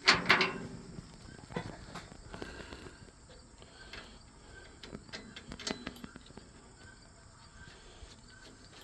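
Metal clanks and knocks from handling sprockets, chain and tools on a combine corn head's drive. A quick cluster of loud knocks comes right at the start, then single scattered clinks.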